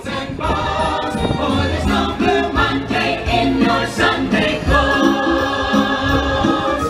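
Show music: a group of voices singing together over instrumental backing, settling into a long held chord about five seconds in.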